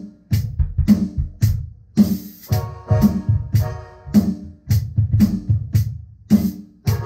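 Electronic drum kit played in a steady band groove, kick and snare strikes about twice a second, with a cymbal crash about two seconds in, over pitched band instruments.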